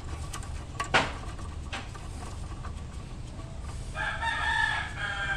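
A rooster crowing once, one long call starting about four seconds in. Before it, about a second in, a single sharp knock.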